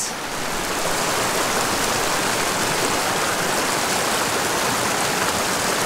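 Small mountain creek rushing over rocks and small cascades: a steady, even wash of water.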